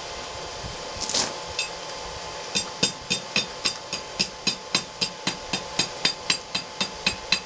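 Hand hammer striking a hot steel bar on an anvil in a steady rhythm of about three or four ringing blows a second, starting about two and a half seconds in. This is bending one tine of a split fork aside while forging cooking irons. A short scraping burst comes about a second in, before the hammering starts.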